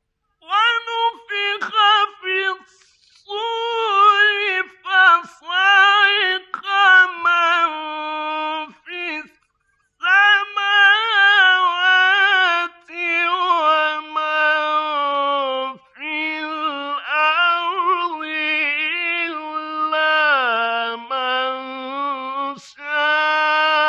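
A male Quran reciter chants in a high, ornamented melodic style, with the pitch wavering and gliding within each phrase. The phrases are broken by brief pauses for breath.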